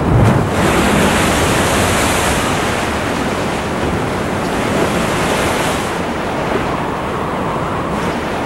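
Ocean surf breaking on a rocky shore: a wave crashes right at the start and the rush of foaming water carries on, easing off a little after about six seconds.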